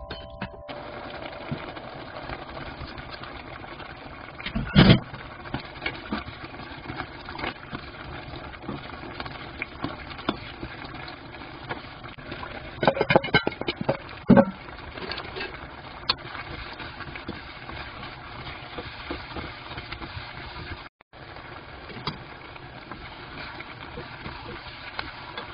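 Cooking utensils stirring food in a pan and bowl: scraping and small clicks over a steady hiss, with louder clatters against the cookware about five seconds in and again around thirteen to fourteen seconds in.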